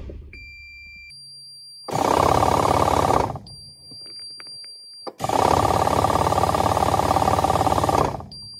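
Starter cranking a Toyota 3L diesel with its fuel cutoff solenoid unplugged, so the engine turns over in a fast pulsing rhythm without firing, to prime the turbo's oil line. It cranks twice: about two seconds in for a second and a half, then about five seconds in for three seconds.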